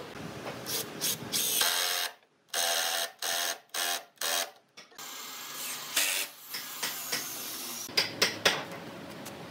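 A small power tool running in a series of short bursts, each about half a second long with a whine, starting and stopping several times. After that comes a steadier hum with a few sharp clicks near the end.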